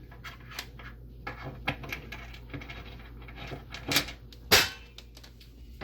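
Light clicking and small knocks of a screw and hardware being handled against a wooden cabinet face plate as a screw is started, with two louder sharp knocks about half a second apart two-thirds of the way through.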